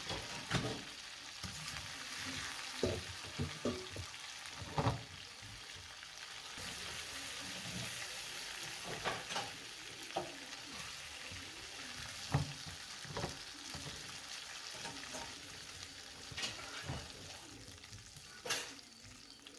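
Spiced chicken pieces sizzling as they fry in hot oil in a pan, with scattered knocks and clicks of a utensil against the pan as the pieces are moved.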